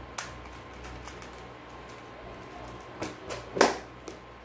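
A few light clicks and knocks from small items being handled at a table, with a cluster of sharper knocks about three seconds in, the loudest near the end.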